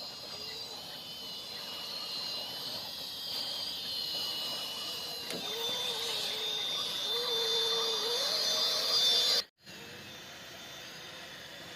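RC crawler's small electric motor and gears whining, the pitch wavering up and down as the throttle changes, over a steady high insect chirr. The sound cuts out abruptly about nine and a half seconds in, leaving a steady hiss.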